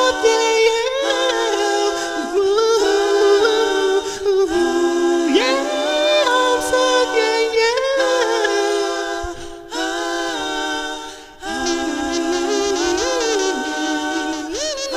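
Human beatbox dubstep performance: several layered, looped vocal lines imitating synth leads, with pitched tones that glide and bend over one another, built up live on a loop station.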